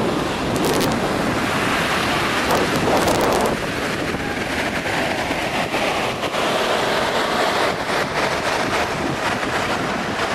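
Ocean surf breaking steadily, with wind buffeting the microphone.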